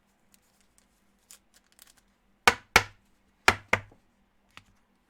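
Four sharp knocks in two quick pairs, a little under a second apart, with faint clicks of handling before them.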